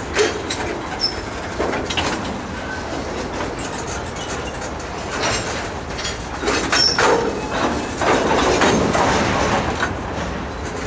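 Freight train cars rolling past: a steady rumble of steel wheels on rail with repeated clacks and clanks as the wheels cross rail joints, and a couple of brief high wheel squeals. It grows louder in the second half.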